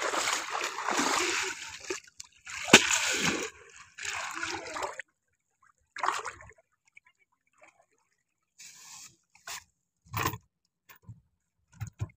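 Water splashing and sloshing as fish are rinsed by hand in shallow river water, with one sharp knock a little under three seconds in. After about five seconds the splashing stops, leaving only a few scattered short knocks.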